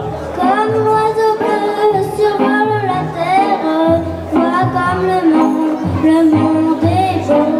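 A young girl singing a melody into a microphone over instrumental accompaniment, with held notes that slide between pitches.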